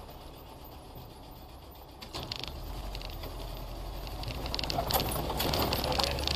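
Car road noise, engine and tyres, quiet at first and louder from about two seconds in, with scattered light clicks and rattles.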